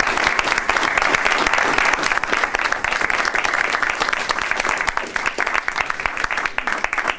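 Small audience applauding, the clapping dense at first and thinning out into scattered claps near the end.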